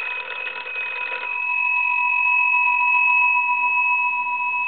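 The twin brass gongs of an antique Monarch wooden crank wall telephone ringing continuously, with two steady bell tones. The strikes are busier in the first second or so, then the ring holds steadier.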